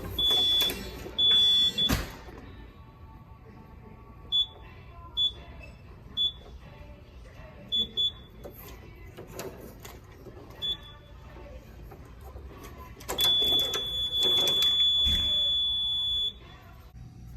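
Simplex 4903-9219 fire alarm horn strobes sounding a high electronic horn tone: a few loud blasts in the first two seconds, then a handful of short chirps, then one long blast of about three seconds that cuts off sharply.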